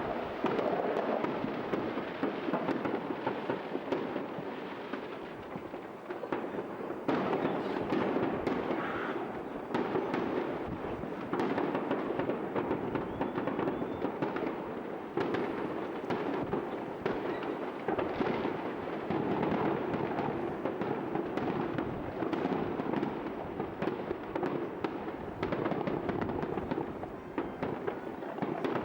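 Fireworks display: a dense, continuous run of bangs and crackles with no breaks, building afresh several times.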